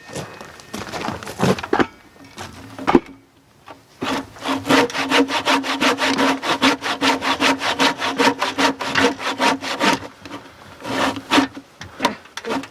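Hand saw cutting wood: a few uneven strokes, then a steady run of quick, even back-and-forth strokes for about six seconds, and a short last burst near the end.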